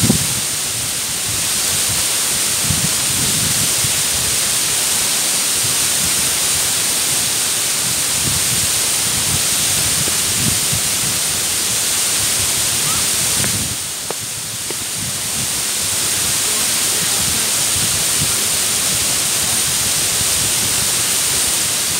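Mumlava waterfall: water pouring steadily over rock steps into an ice-covered pool, an even rushing roar. The level dips briefly about two thirds of the way through.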